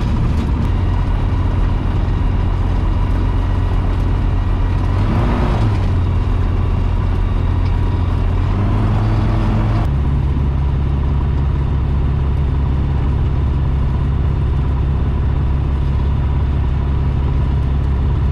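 Tecnam P92 Eagle's piston engine and propeller heard from inside the cockpit, running steadily at low taxi power. The engine note shifts slightly about five seconds in and rises briefly near nine seconds, then changes abruptly about ten seconds in to a steady, lower idling drone.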